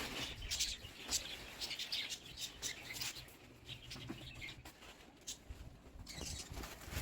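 Faint, scattered short high chirps of birds over a low background hum that fades out about two-thirds of the way through.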